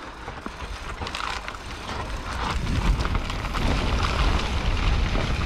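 Rockrider AM100S mountain bike rolling slowly down a dirt trail, with the rattle of tyres and bike and wind rumble on the helmet-mounted microphone. The rumble builds from about two seconds in.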